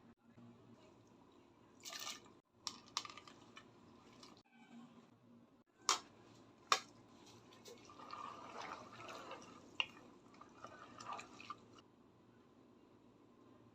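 Faint kitchen handling sounds: scattered light clicks and knocks with a few short soft scrapes and rustles, as of utensils and ingredients being handled during cooking.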